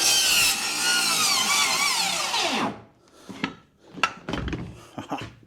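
Power saw cutting wood, its motor pitch falling until it stops about two and a half seconds in. After that come a few separate knocks and clatters.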